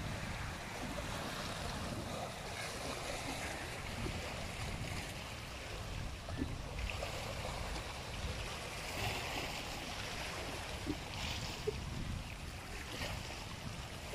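Small sea waves washing against the rocks of a seawall, with wind on the microphone; a few faint clicks come in the second half.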